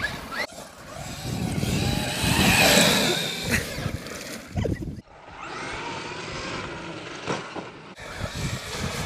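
Traxxas X-Maxx electric RC monster truck driving on a gravel road, its motor running at changing speed with tyres on gravel. The sound jumps abruptly a few times, about half a second in, near the middle and near the end.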